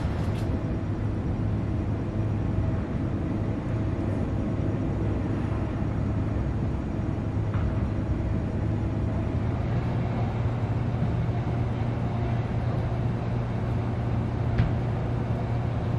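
Steady low rumble with an even hiss over it, outdoor background noise with no clear single source, and a couple of faint ticks.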